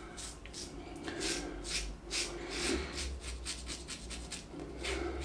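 Blackland Osprey adjustable safety razor, set to 4 and fitted with a Gillette Rubie double-edge blade, cutting stubble through shaving cream. It makes a quick run of short scraping strokes, several a second.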